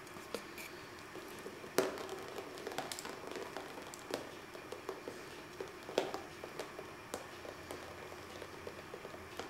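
Irregular small taps and clicks in a small room, with two louder knocks about two and six seconds in.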